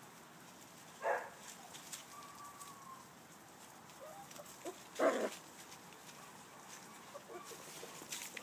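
Petit Basset Griffon Vendéen puppies giving two short, sharp yaps, about a second in and about five seconds in, with a few faint squeaks between.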